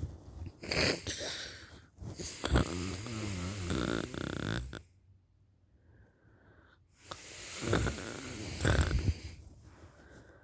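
A woman in a deep, exhausted sleep, snoring. There are several long snoring breaths, the longest with a wavering buzz in it, and a silent pause of about two seconds in the middle.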